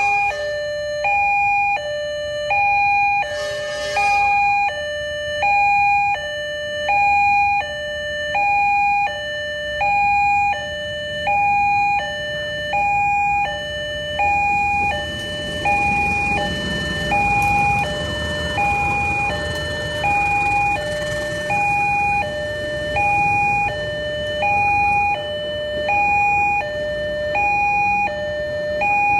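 Railway level-crossing warning siren sounding a repeating two-tone hi-lo alarm, the higher and lower tones alternating about every 0.7 s. A low rumble rises under it in the middle, and a brief hiss comes about three and a half seconds in.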